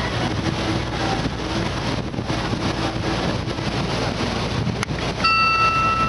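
Wind buffeting the microphone over the steady running of a motor ship and the rush of water past its hull. About five seconds in there is a click, then a high, steady tone with overtones starts and holds.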